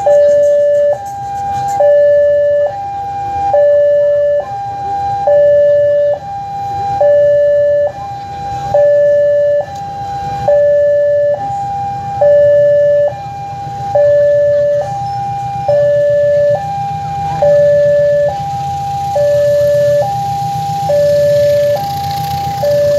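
Railway level-crossing warning alarm sounding a steady two-tone high-low signal, each tone a little under a second: the warning that a train is approaching. Under it, a low rumble from the approaching diesel locomotive grows stronger in the second half.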